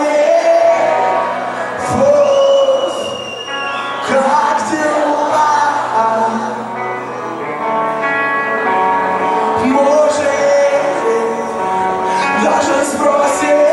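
Live alternative rock band playing, with a singer's voice over sustained, pitched guitar and band sound.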